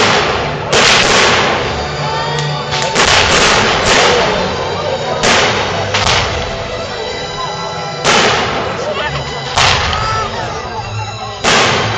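Aerial fireworks shells bursting in a display: about ten sharp bangs at uneven spacing, each trailing off over a second or so.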